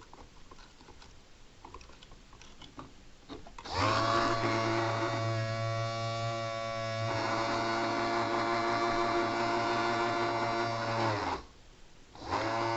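Small electric motor on a 3D-printed mini Thunderbolt siren, running with a steady buzzing hum for about seven seconds, then stopping. A second short burst follows near the end. It runs with no suppression capacitors fitted.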